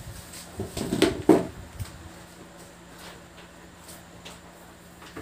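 Handling knocks as a circuit board on an aluminium heatsink is set down on a rubber bench mat, a few short knocks clustered about a second in, over a faint steady hum.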